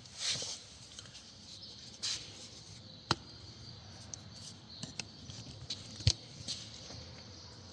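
Odds and ends being put back into a car's glove box: light rustling and handling with scattered sharp clicks and knocks, the loudest about three seconds and six seconds in.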